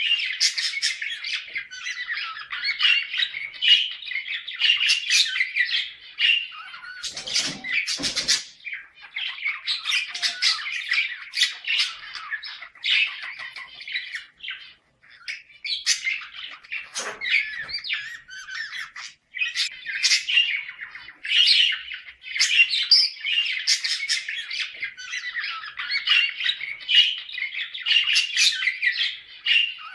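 Budgerigars chattering in a rapid, unbroken run of warbles, squawks and chirps, with brief pauses about halfway through. This is the excited chatter of budgies in breeding condition, the kind played to other budgies to bring them into breeding mood.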